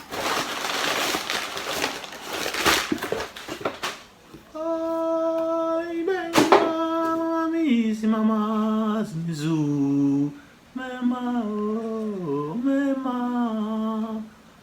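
Packaging rustling and crackling as a box is opened, then a man humming a wordless tune in long held notes that step and slide in pitch, with a sharp click partway through.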